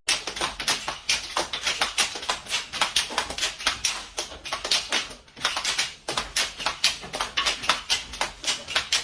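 Quick, continuous series of sharp taps or clicks, several a second, with two brief pauses a little past the middle.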